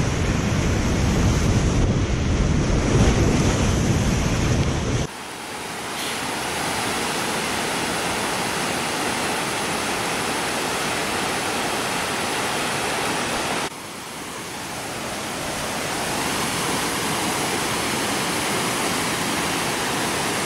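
Whitewater rapids churning around a kayak, loud and rumbling close on the microphone; about five seconds in it changes suddenly to the steady rush of the rapid heard from the bank, with a short drop in level about fourteen seconds in.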